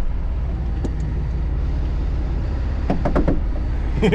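Truck engine idling with a steady low rumble, and a few short clicks about three seconds in.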